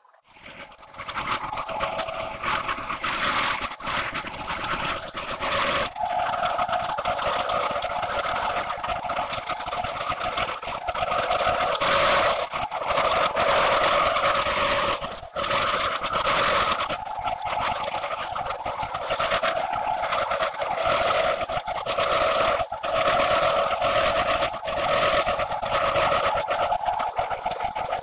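Bridgeport milling head driving a face-milling cutter through a long steel shim on a roughing pass about 80 thousandths deep: a steady pitched cutting whine over a scraping hiss of chips, with a few brief dips.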